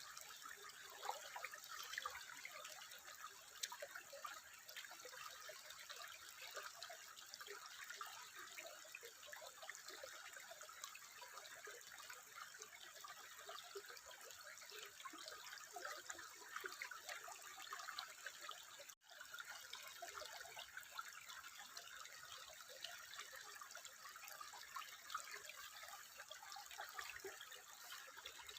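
Water trickling steadily, a dense patter of small bubbling splashes. It cuts out for a moment about two-thirds of the way through, then carries on.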